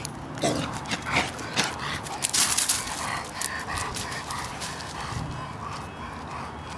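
Irish Wolfhound puppy barking a few times with short, sharp sounds in the first couple of seconds, then scuffling and rustling about as it moves into garden plants.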